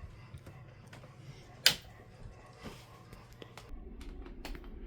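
Low steady hum of a 2006 Amana 6000 BTU air conditioner running on its fan only, the compressor not kicked on, with one sharp click about a second and a half in and a few faint knocks. The hum drops to a lower pitch near the end.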